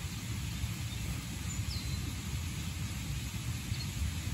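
Outdoor ambience dominated by a steady, fluctuating low rumble of wind on the microphone, with a couple of faint, short, falling bird chirps.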